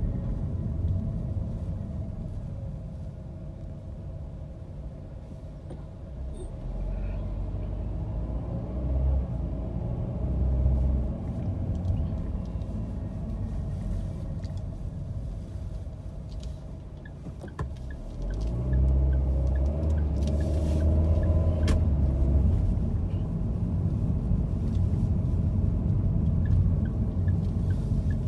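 Car interior noise while driving in city traffic: a steady low engine and road rumble that dips in the middle and grows louder about two-thirds of the way in.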